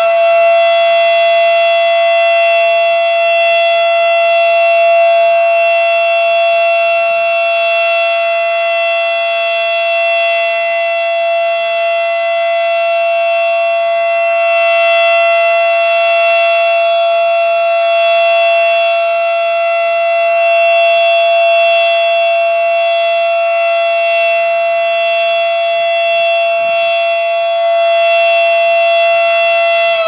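Federal Signal Model 5 outdoor warning siren sounding its steady alert signal: one loud held pitch with many overtones, at full speed after its wind-up. This is the county's routine weekly siren test.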